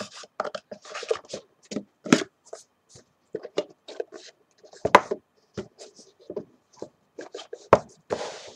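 Hands handling a phone box and its contents: irregular taps, knocks and rustles, with sharper knocks about two, five and nearly eight seconds in and a brief rustle near the end.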